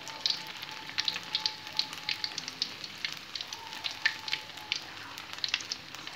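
Chicken pieces coated in kremes batter frying in hot oil in an aluminium wok, sizzling with dense, irregular crackling pops.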